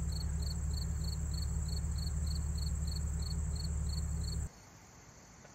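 Insects chirping in an even rhythm, about three chirps a second, with a steady high trill, over a loud steady low hum that cuts off suddenly about four and a half seconds in, leaving only the fainter insect trill.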